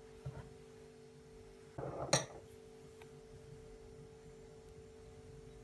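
A metal ladle knocks and scrapes against a stainless steel saucepan once, about two seconds in, while scooping thick custard. Under it runs a faint steady hum of a few held tones.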